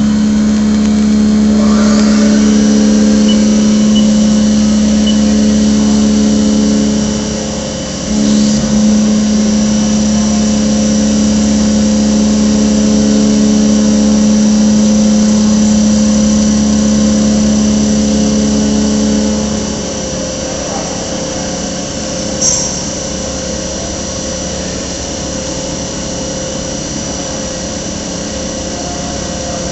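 CNC milling machine running a machining cycle: a loud, steady motor whine that breaks off briefly about eight seconds in, resumes, then stops about twenty seconds in, leaving a steady lower hum. A short sharp click sounds a couple of seconds after the whine stops.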